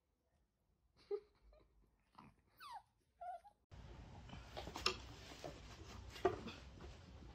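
A small Chihuahua-type dog makes a few short, quiet vocal sounds, one sliding down in pitch. Then steady room hiss with a few sharp knocks and scuffles as a large dog jumps on a person on the floor.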